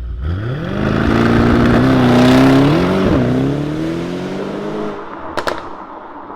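Mercedes-AMG E63 S 4Matic+ twin-turbo 4.0-litre V8 accelerating hard: the revs climb from idle, dip briefly about three seconds in as it shifts up, then the sound fades as the car pulls away. A pair of sharp cracks follows about five seconds in.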